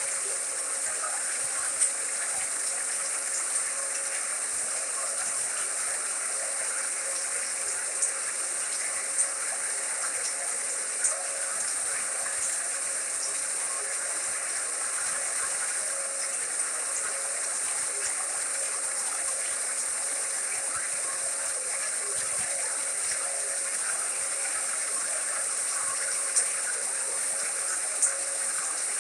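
Steady white-noise hiss with a faint steady hum and a few brief soft clicks scattered through it.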